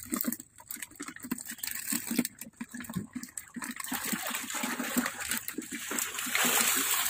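Shallow water sloshing and splashing in irregular strokes as a long-handled hand net is swept through it to scoop up fish, with a steadier rush of water near the end.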